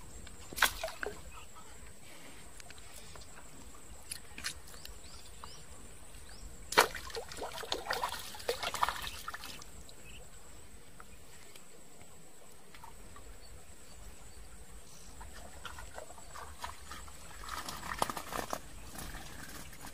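Splashing and sloshing in shallow standing water during hook-and-line fishing: a brief splash about a second in, a longer bout of splashing from about seven to nine and a half seconds in, and more splashes near the end.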